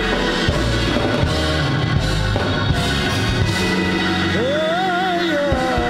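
A woman singing a gospel praise song into a microphone over steady instrumental backing with drums; her held, wavering notes come in strongly about two-thirds of the way through.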